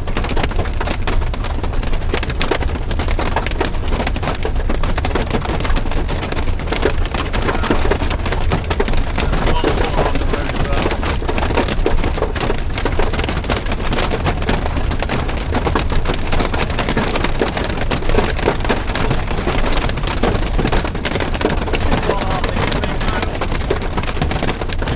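Heavy thunderstorm rain pelting down hard: a dense, steady patter of drops with a low rumble underneath.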